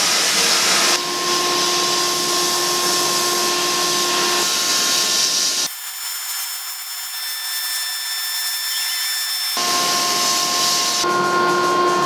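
Abrasive blast cabinet nozzle hissing steadily as a rusty water-pump pulley is blasted clean, over a steady hum. For a few seconds in the middle the hum and the lower part of the hiss drop out, leaving a thinner, higher hiss.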